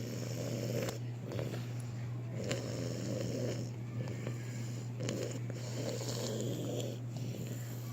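Snoring: repeated snoring breaths, each lasting under a second, one after another, over a steady low hum.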